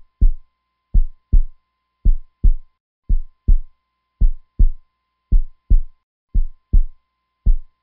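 Heartbeat sound effect: slow double thumps (lub-dub) repeating about once a second over silence, with a faint thin high tone held underneath.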